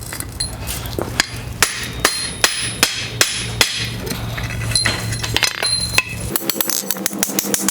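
Hand hammer striking hot steel bar stock on an anvil, irregular ringing blows about two a second, as the end of a hinge strap is rolled into a barrel around a drift. A steady low hum runs underneath until about six seconds in, when it drops out and a quicker rattling rhythm takes over.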